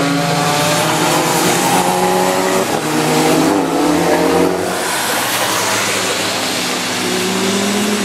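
Car engines running hard on a racetrack, their pitch slowly rising and falling as the cars accelerate and pass, with a steady hiss of noise underneath.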